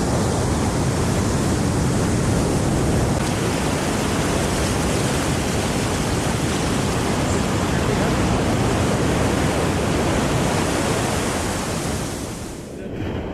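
Ocean surf washing in around a wader's legs, a steady rush with wind buffeting the microphone, thinning and dropping away near the end.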